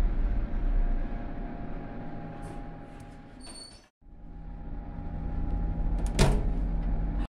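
Otis Series 1 traction elevator car riding, a low steady hum and rumble that gradually fades, with a brief high beep near the fade. After a cut the hum comes back and a single sharp knock sounds near the end.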